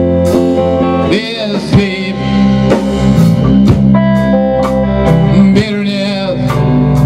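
Band playing live through an instrumental break: electric guitars holding and bending notes over a drum kit's steady beat of cymbal and snare hits.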